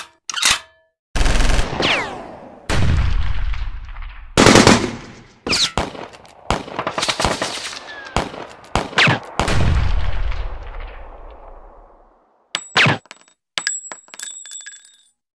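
Title-sequence sound effects: a run of loud gunshot-like hits, each dying away slowly and some trailing a falling tone, then a few short, sharp metallic clicks near the end.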